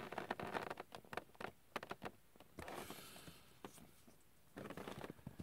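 Small plastic action-figure armor parts being handled: faint light clicks and taps, with soft rustling twice.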